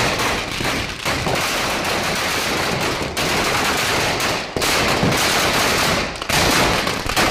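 Firecrackers packed inside a burning Ravana effigy going off in a dense, continuous crackling barrage of rapid bangs, easing briefly a few times.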